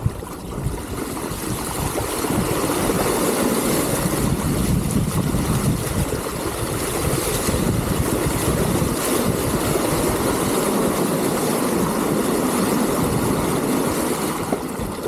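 Steady rush and splash of river water around an electric mountain bike being ridden through a river crossing.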